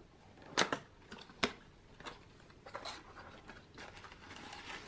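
A small cardboard gift box being handled and opened: three sharp clicks of the card in the first second and a half, then the flap pulled open and shredded paper filler rustling softly.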